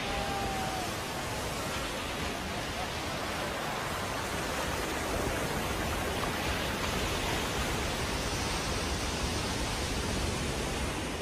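Steady rush of sea surf on the shore, a little louder in the second half.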